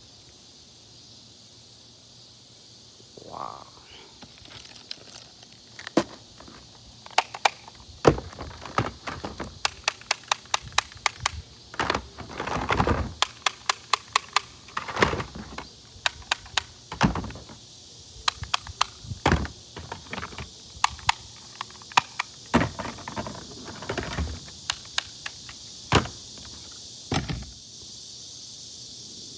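Toy foam-dart blaster being worked and tested: many sharp clicks and thunks, some in quick runs of several a second, with a few longer rasping sounds between them.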